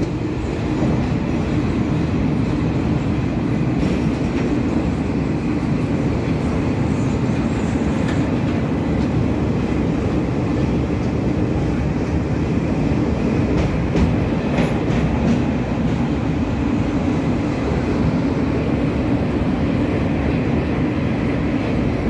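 Train running steadily over a steel truss bridge, heard from aboard: a continuous rumble of wheels on rails with a few faint clicks.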